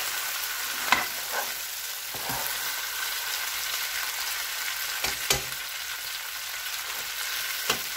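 Mutton pieces sizzling as they are fried dry in a pan, with a spatula stirring through them and a few sharp knocks of the spatula against the pan.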